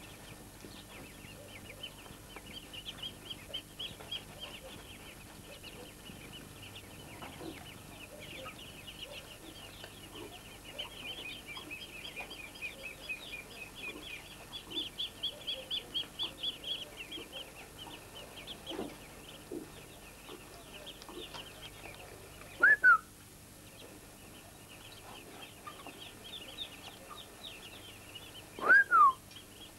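Muscovy ducklings peeping: a steady, rapid chatter of high little chirps, busiest midway. Twice, late on, a single much louder call slides downward.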